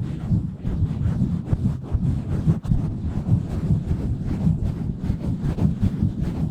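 Hands rapidly pumping, rubbing and scratching on an uncovered microphone: a deep, muffled rumble made of quick, irregular strokes.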